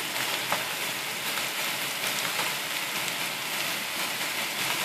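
Chopped chicken and mushrooms sizzling steadily in a hot frying pan, with a couple of faint ticks.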